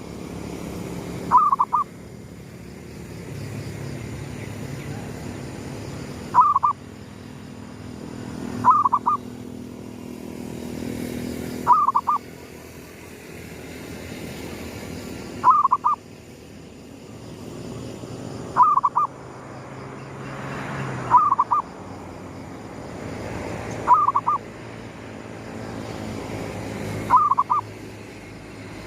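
Zebra dove (perkutut) cooing: a short burst of quick notes, repeated about every three seconds, nine times.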